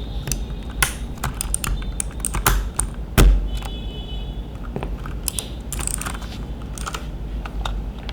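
E-Dra EK361W mechanical keyboard with Outemu switches, keys pressed in scattered, irregular clicks, with one louder knock about three seconds in.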